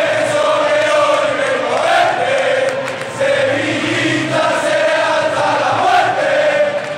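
A stadium crowd of football supporters singing together in unison, many voices holding long drawn-out notes.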